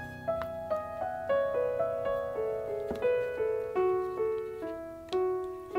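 Background piano music: a slow line of single struck notes, about three a second, stepping mostly downward, each left to ring.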